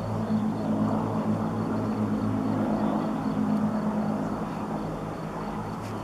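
Avro Lancaster's four Rolls-Royce Merlin piston engines running with a steady, deep drone as the bomber flies its landing approach with undercarriage down, easing off a little near the end.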